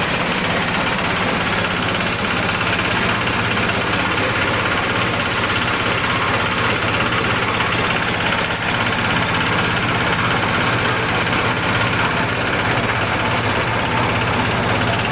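Corn-husking machine running, driven by a small single-cylinder diesel engine: a steady engine drone with the spinning drum, without a break.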